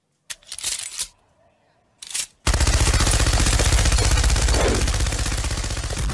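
Sustained burst of rapid machine-gun fire starting about two and a half seconds in, after a couple of brief short sounds, and running on without a break.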